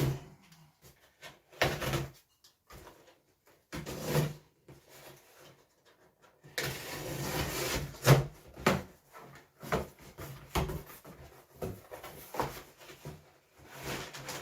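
Handling sounds of items being unpacked from a box: rustling packaging with a longer stretch of rustling about halfway through, and objects knocking and clicking against each other and the table.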